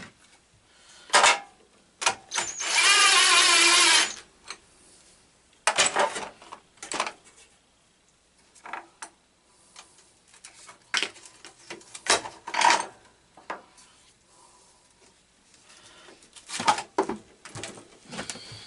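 A power drill runs for about a second and a half, with short clinks and knocks of tools and metal parts being handled before and after it.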